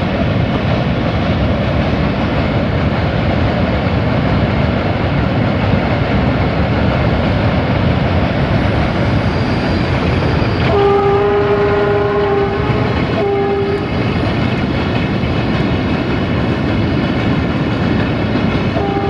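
Freight train hauled by an LDE2100 (060-DA) diesel-electric locomotive, running with a steady rumble. The locomotive's horn gives a long blast about eleven seconds in, then a short one, and starts again at the very end.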